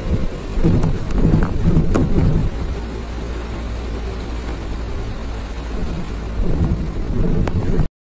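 Rain beating on a moving vehicle's windows and roof over a steady low road rumble, heard from inside, with louder rushing swells about a second in and again near the end.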